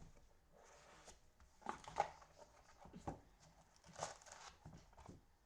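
Faint crinkling, rustling and light knocks of a sealed trading card box and its packs being handled and opened, in several short bursts.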